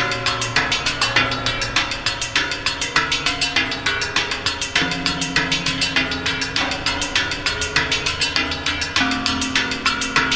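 Percussion improvisation of sticks striking metal plates: fast, even strokes, about ten a second, over sustained low tones that step to a new pitch about five seconds in and again near the end.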